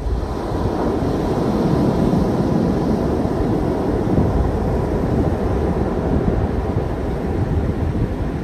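Ocean surf washing up a sand-and-pebble beach, a steady rush that swells over the first couple of seconds, with wind rumbling on the microphone.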